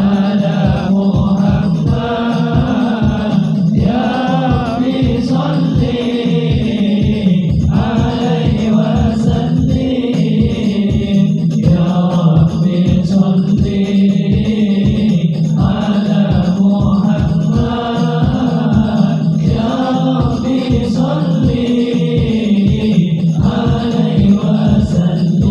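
Sholawat, Islamic devotional chanting, continuing as music: chanted voices over a steady low drone and a quick, even rhythmic pulse.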